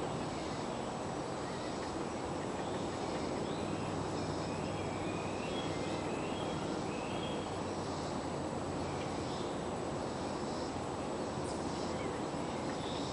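Steady outdoor background noise with faint, short high bird chirps now and then.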